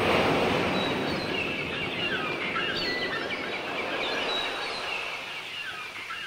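Nature ambience opening a progressive rock track: birds calling in short chirps and quick glides over a steady background noise, which slowly gets quieter.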